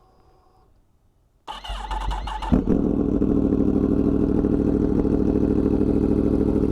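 Yamaha MT-10's crossplane inline-four engine being started: the starter cranks about a second and a half in, the engine catches about a second later and settles into a steady idle.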